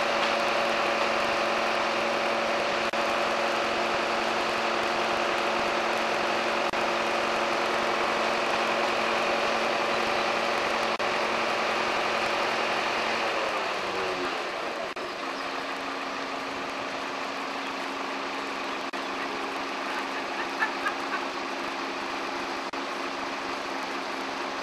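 Truck-mounted crane's engine and hydraulic drive running steadily at raised revs with a droning whine, then falling in pitch and getting quieter about 14 seconds in and carrying on at the lower speed.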